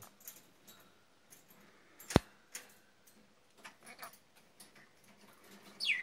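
Green-cheeked conure on a wire cage top: scattered light clicks and ticks on the metal bars, and one sharp loud click about two seconds in. Right at the end comes a short chirp that falls in pitch.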